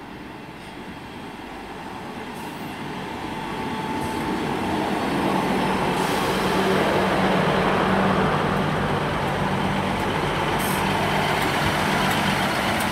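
Class 158 diesel multiple unit pulling into the station to stop. Its diesel engines and running noise grow steadily louder over the first six seconds, then hold at a steady engine hum as it draws up at the platform.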